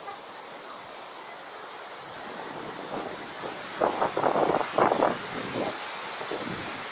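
Surf washing up a sand beach: a steady rushing hiss of foam and water, with a louder, rougher spell for about a second and a half starting about four seconds in.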